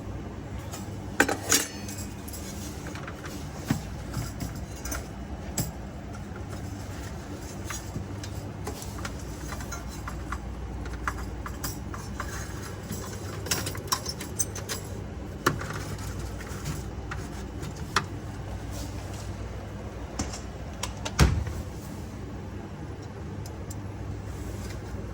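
Scattered metallic clicks and clinks of hand tools and parts as a refrigerator defrost heater is fitted, with a sharp click about a second in and another near the end, over a steady low hum.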